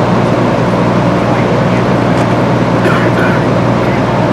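Fire apparatus engine running steadily: a constant low drone.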